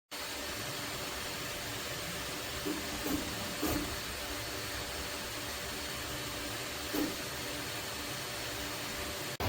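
3D printer running: a steady fan hiss with faint steady motor tones, and a few brief clicks from its moving parts.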